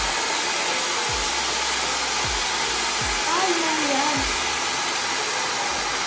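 Dyson Supersonic hair dryer blowing steadily through its flyaway smoothing attachment: an even rush of air, with a faint low puff about once a second.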